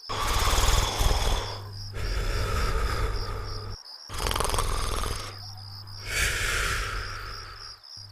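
Cartoon snoring: four long, loud snore breaths in a row, each about two seconds long, with crickets chirping steadily behind them.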